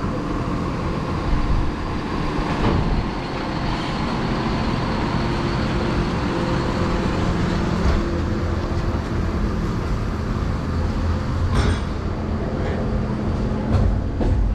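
A motor running steadily with a low rumble and hum, with a sharp click about eleven and a half seconds in.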